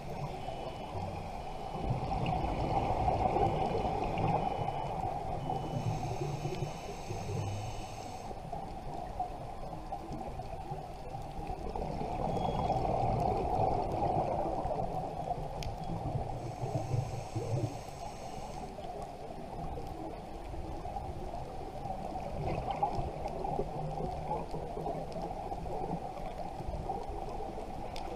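Scuba diver's breathing heard underwater through the camera housing: a bubbly exhale swelling and fading about every ten seconds, with a short hiss from the regulator in between.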